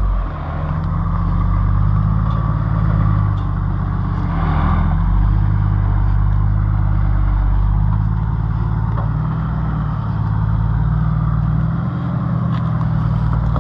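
Toyota Land Cruiser 80 Series four-wheel drive crawling slowly at low revs over a rough dirt track, a steady low engine rumble that rises and falls a little.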